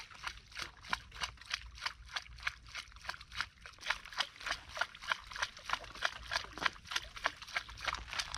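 Rapid, even clicking, about five clicks a second, high in pitch and steady throughout.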